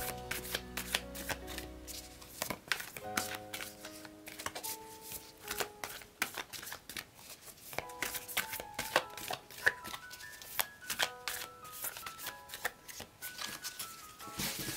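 A tarot deck being shuffled by hand: a quick, uneven run of soft card slaps and flicks, over gentle background music.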